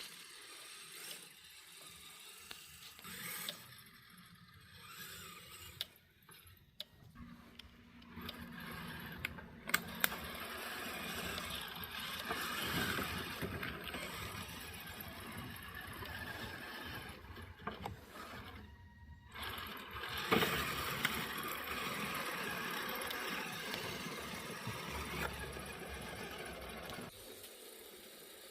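Kyosho Blizzard RC snow tractor driving on metal tracks: motor and gearbox whine with the tracks clattering and rattling, rising and falling with the throttle. It starts and stops a few times early on, runs louder from about eight seconds in, pauses briefly near nineteen seconds, and stops near the end.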